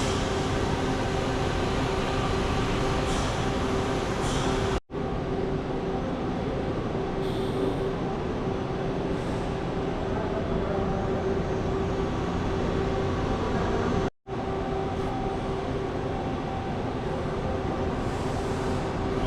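Train running, a steady rumble with a constant hum, breaking off for an instant twice.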